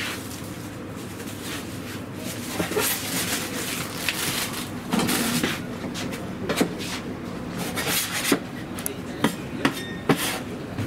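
Kitchen work noises: scattered knocks and clinks over a steady background noise, with a few sharper knocks in the second half.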